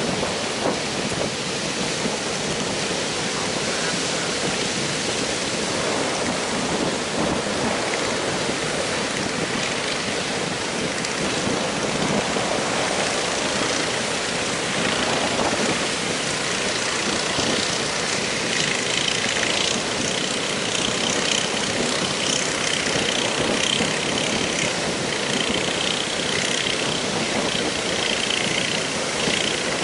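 Heavy surf breaking continuously in strong wind, with the engines of outrigger fishing boats running through it. Past the middle a higher, wavering engine whine joins in as a boat comes through the breakers.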